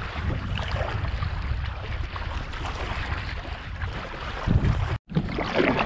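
Wind rumbling on the action-camera microphone over water splashing and lapping around an inflatable packraft as it is paddled into a headwind. The sound cuts out briefly about five seconds in.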